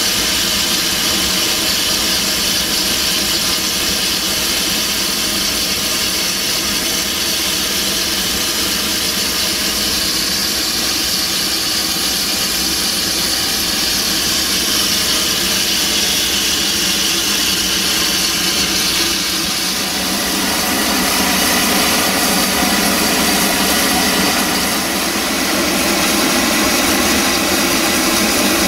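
Steady running noise of the narrow-gauge steam train hauled by locomotive 762.209: a continuous hiss over a low mechanical hum, with no distinct exhaust beats, changing slightly about two-thirds of the way through.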